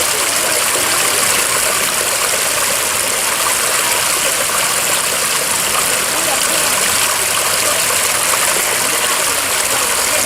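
Steady rush of falling water, an even hiss with no change in level, with faint voices underneath.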